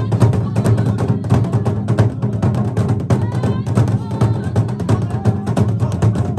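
Fast, steady drumming with voices over it.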